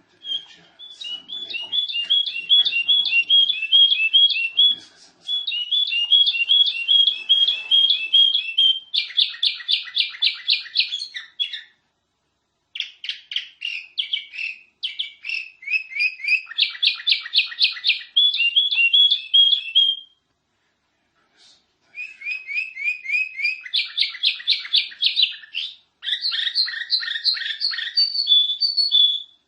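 Canary singing a long, loud song of rapid repeated trills, phrase after phrase, pausing briefly about twelve seconds in and again for a second or two around twenty seconds.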